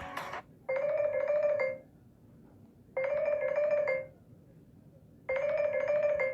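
Stock Samsung Galaxy J7 Prime phone tone in a marimba-like mallet sound: a short melody about a second long, repeated three times with a gap of about a second between each.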